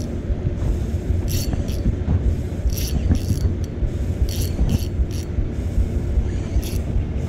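Spinning reel's drag clicking in short bursts, about six times, as a hooked fish pulls line off against the bent rod. A steady low rumble runs underneath.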